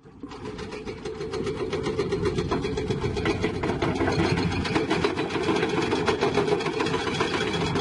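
Diesel engine of heavy construction equipment running steadily with a fast, even clatter, fading in over the first two seconds.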